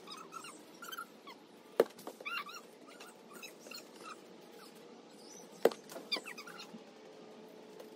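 A soccer ball kicked twice, two sharp thumps about four seconds apart, the second a hard shot toward the goal's crossbar. Short high-pitched animal cries come and go around and between the kicks.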